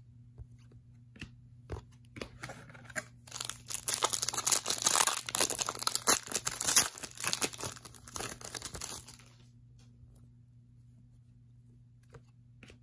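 Trading-card pack wrapper being torn open and crinkled: a few seconds of dense tearing and rustling that starts about two seconds in, is loudest in the middle, and stops about nine seconds in.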